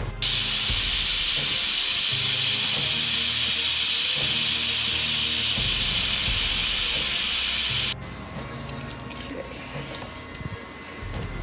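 Loud, steady hiss of compressed air rushing out of a 37-inch off-road tire as it is let down for the next fill test. It starts abruptly and cuts off sharply after about eight seconds.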